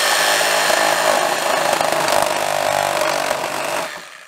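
Milwaukee cordless reciprocating saw cutting through the hard plastic body of a Power Wheels ride-on toy, running steadily, then stopping near the end.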